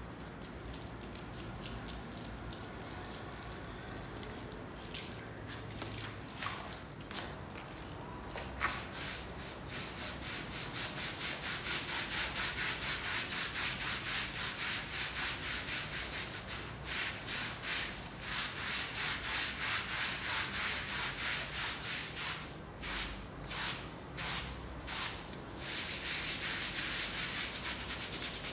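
Stiff hand scrub brush scrubbing a soapy rug lying on a stone floor, with rapid back-and-forth strokes through the wet foam. The scrubbing starts about eight seconds in, after a quieter stretch with a few clicks, and comes in short runs with brief pauses near the end.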